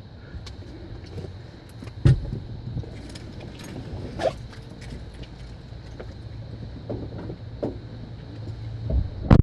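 Storm wind and rain rushing steadily with a low rumble, broken by sharp knocks and rattling clicks, the loudest about two seconds in and just before the end.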